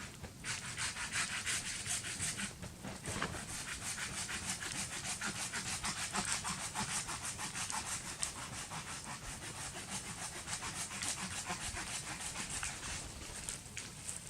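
Silky Japanese pull saw cutting through wood in quick, even strokes, with a short pause about two and a half seconds in.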